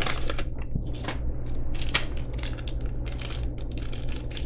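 Packaging being handled close to the microphone: a dense, irregular run of short crinkling and rustling crackles from plastic and paper.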